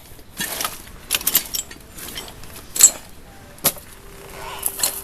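Metal tie-down hardware being rummaged through: hooks and chain pieces clinking and rattling against each other in irregular, scattered clinks.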